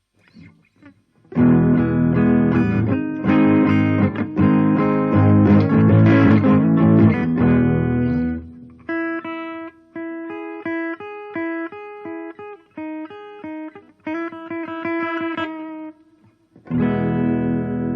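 Electric guitar played: loud strummed chords for about seven seconds, then a quieter line of single picked notes, and a fresh chord left ringing near the end.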